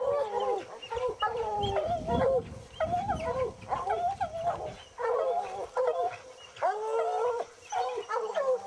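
A pack of Walker hounds baying together at a treed mountain lion, many long overlapping bawls and bays in a continuous chorus. A low rumble on the microphone runs under them for a few seconds near the start.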